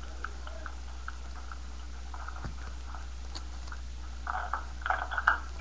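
Small plastic Bionicle parts being handled and fitted together: scattered light clicks, then a denser spell of clicking and rattling near the end, over a steady low hum.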